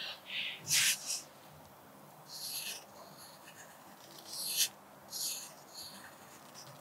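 Pencil scratching on paper while writing cursive calligraphy letters: a run of short strokes with brief pauses between them.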